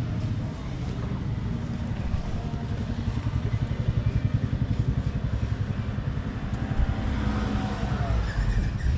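Motorcycle engine idling with a steady low pulse. Near the end a second engine's pitch swings up and down.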